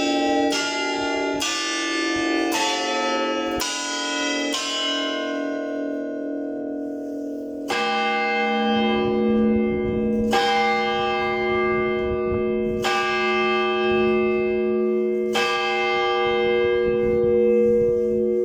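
Bells of the Nevyansk Leaning Tower ringing: a quick run of strikes on several higher bells for the first four or five seconds, left to ring on, then a deeper bell struck repeatedly about every two and a half seconds.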